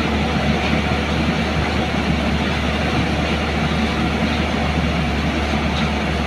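JCB crawler excavator's diesel engine running steadily under load while its arm works the bucket, emptying sand into a dump truck, with a constant deep hum.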